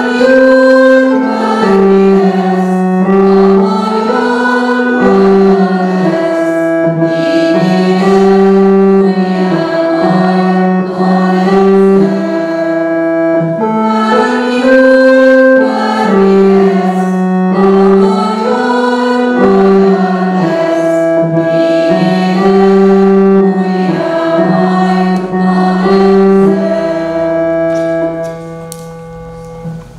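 A church congregation singing a hymn together, a slow melody in long held notes, which ends near the end.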